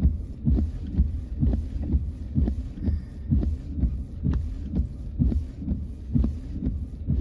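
Car windshield wipers sweeping in rain, a steady low thump about twice a second as the blades reverse, over a low hum.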